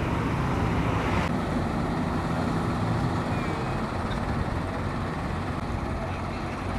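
Road vehicles' engines running in a steady low rumble, with a hiss of traffic noise that cuts off abruptly a little over a second in.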